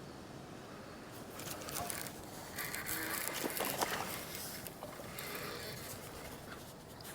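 Irregular scraping and rustling, with scattered clicks, as a fish is reeled in and handled. It starts about a second in and is loudest in the middle.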